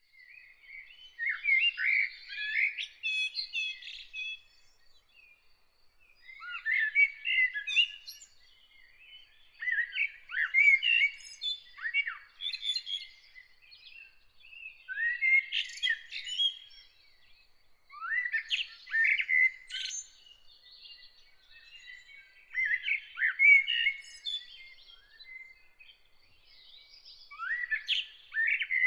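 A songbird singing short, varied phrases of two to three seconds, about seven times with pauses between, over a faint steady high note in the background.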